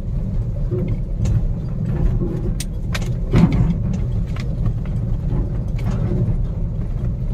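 Mahindra Bolero pickup driving, heard from inside the cab: a steady low engine and road rumble, with many small rattles and clicks from the cab.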